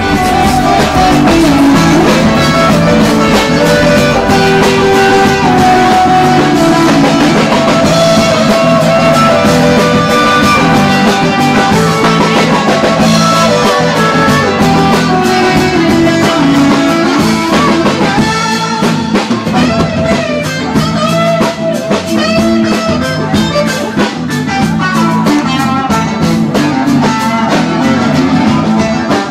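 Band music: guitar over a drum kit with a steady beat.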